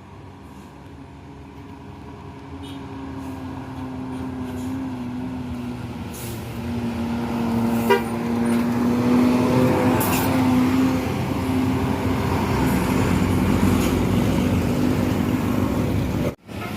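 A tour bus approaching, its engine drone growing steadily louder over about eight seconds, then passing close with heavy engine and road noise. There is a sharp click about eight seconds in, and the sound cuts out abruptly just before the end.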